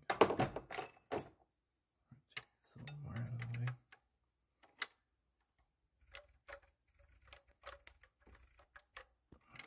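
Valvetronic actuator motor on a BMW N55 engine briefly whirring as it turns the eccentric shaft against its modified end stop, with no end-stop rattle. Clicks and a knock come near the start, a low hum lasts about a second around three seconds in, and a run of light ticks follows in the second half.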